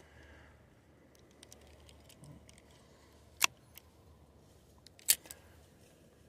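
A few faint clicks, then two sharp, much louder clicks about a second and a half apart, over a quiet background.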